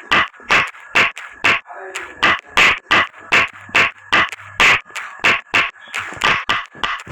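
A quick, slightly uneven run of sharp taps or clicks, about three to four a second, over a faint steady high tone.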